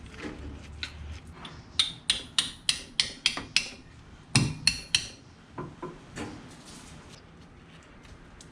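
Hammer blows driving a tool into a pilot bearing bore packed with soaked paper towels. This is the hydraulic trick for pushing out an old clutch pilot bearing. There is a quick run of about seven sharp strikes, then three heavier ones after a brief pause, then a few lighter taps.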